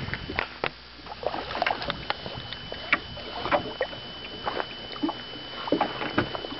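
Small waves lapping and slapping irregularly against the side of a metal fishing boat, with scattered light knocks. A faint steady high tone runs underneath.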